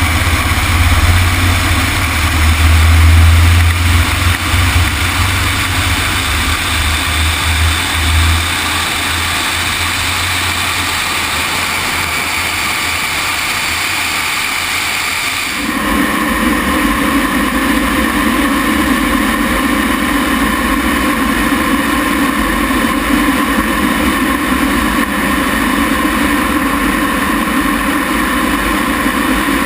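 Lockheed T-33's Allison J33 turbojet running steadily, a loud even engine roar with a heavy low rumble for the first several seconds; about halfway through the sound changes abruptly to a lighter, steady engine noise.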